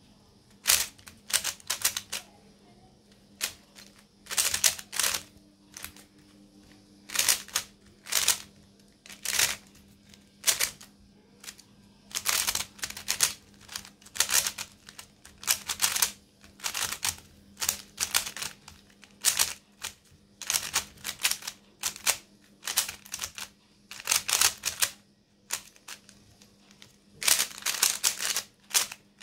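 Plastic stickerless 3x3 speed cube being turned fast by hand, its layers clicking and clacking in quick bursts of turns with short pauses between them.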